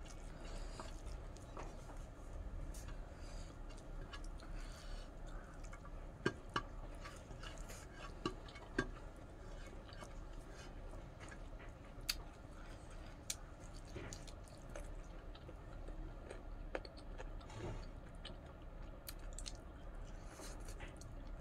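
Close-up eating sounds: a person chewing and biting chicken curry and rice eaten by hand, with many scattered sharp clicks and taps, a few louder ones in the first half.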